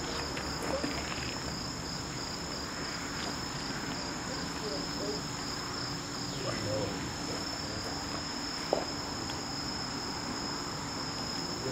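Steady, high-pitched insect chorus, with a single sharp click about three quarters of the way through.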